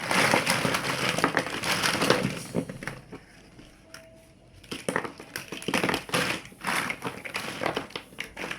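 Plastic building blocks clattering and clicking as they are handled. A dense rattle for about the first three seconds, a short lull, then bursts of clicks.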